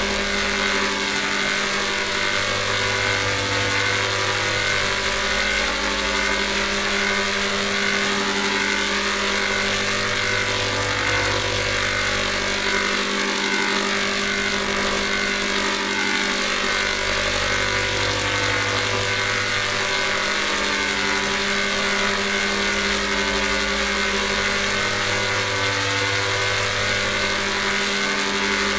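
Electronic drone holding a G major chord, steady in loudness, its many held tones unchanging while the lowest notes fade in and out in a slow cycle of about seven seconds.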